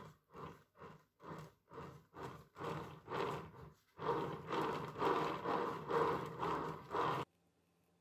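Metal offset spatula spreading whipped cream over a sponge cake layer: a soft scraping swish with each stroke, about two strokes a second, louder and running together from about halfway. It cuts off abruptly near the end.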